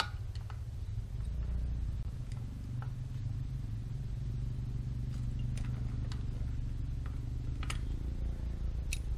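A few light metallic clicks of a wrench on the fittings as the pressure gauge is taken off and the fill plug loosened on a shallow-well jet pump, the first step in priming it, over a steady low rumble.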